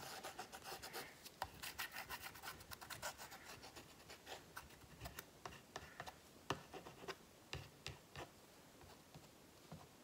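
Paintbrush rubbing and dabbing wet black acrylic paint along the edges of a canvas: a run of faint, scratchy strokes and small ticks that thin out over the last couple of seconds.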